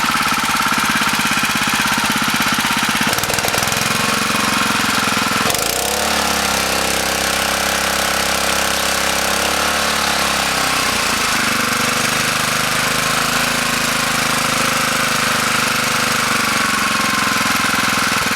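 Small petrol engine of a portable water pump running steadily while pumping out floodwater, its carburettor freshly cleaned. Its note shifts about four to six seconds in and again around eleven seconds.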